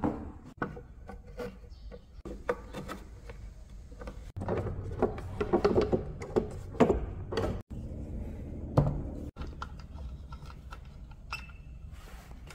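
Handling knocks and clicks as the head of a 1953 Singer sewing machine is set into its wooden base, with small metal clicks as the hinge fittings at the back of the bed are worked by hand. A busy stretch of knocking comes near the middle, and a single knock follows a little later.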